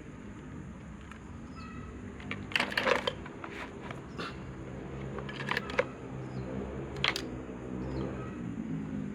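Sharp clicks and clacks of small parts and tools being handled during an electric fan motor repair: a quick cluster about two and a half seconds in, then single clicks every second or so, over a low steady hum.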